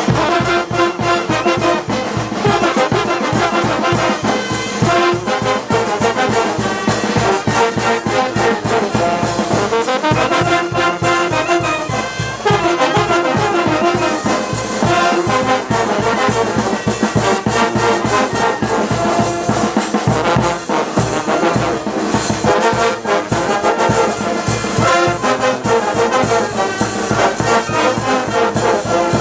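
Peruvian brass band playing live: trombones, tubas and clarinets carrying the tune over a steady bass drum beat.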